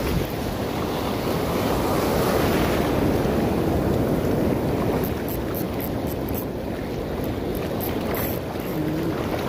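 Sea surf breaking and washing in the shallows, with wind buffeting the microphone. A few short faint crackles come through in the second half.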